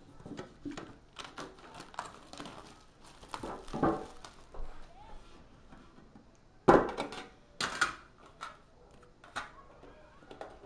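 Metal collectible card tin being opened and handled: scattered clicks and knocks, with two louder knocks about seven and eight seconds in.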